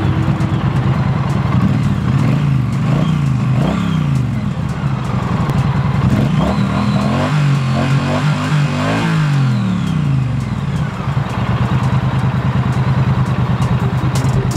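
2016 Triumph Street Twin's 900 cc parallel-twin engine idling and being blipped on the throttle several times, the pitch rising and falling with each blip. There are quick blips in a row around the middle, then it settles back to a steady idle.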